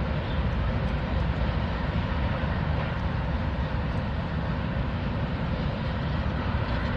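Norfolk Southern freight train rolling across a steel truss railroad bridge: a steady rumble of diesel locomotives and rail cars, with no horn sounding.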